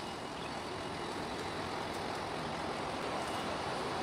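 Steady outdoor background noise, an even hiss-like hum with no distinct events.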